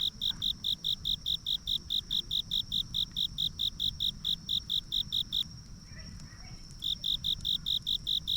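A cricket chirping in an even rhythm, about four high chirps a second. It breaks off for about a second and a half partway through, then resumes over a steady high insect trill.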